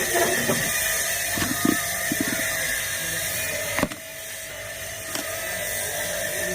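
Light clicks and knocks of small parts being handled, over a steady background hiss with a faint hum, including a sharp click a little before four seconds in and another near five seconds.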